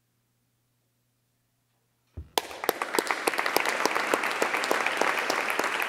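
Near silence for about two seconds, then an audience bursts into applause, with a single low knock just before the clapping starts; the dense clapping carries on steadily to the end.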